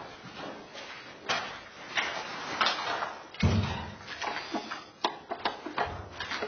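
Irregular knocks and clatter, with one heavier thud about three and a half seconds in.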